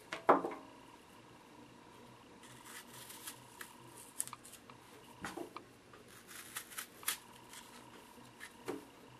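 Small paring knife slicing and scraping into a peeled apple, in short irregular cuts, with a few louder knocks, the loudest just after the start.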